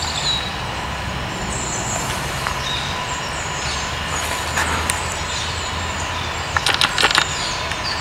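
Steady low hum of distant road traffic, with birds chirping high and thin throughout and a quick run of sharp knocks a little before the end.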